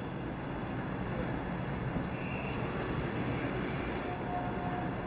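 Steady engine and road rumble heard inside a car's cabin.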